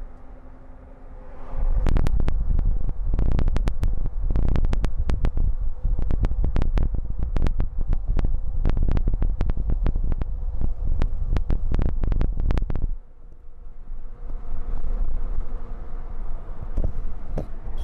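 Strong wind buffeting the microphone in a moving storm-chase truck: a heavy low rumble full of rapid crackling pops starts about a second and a half in and drops off abruptly near thirteen seconds, leaving a quieter vehicle hum with a steady tone.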